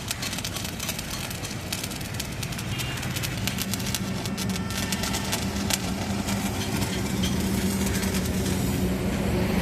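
Stick-welding arc crackling, a dense run of fine sputtering clicks, with a steady low hum that comes in about a third of the way through.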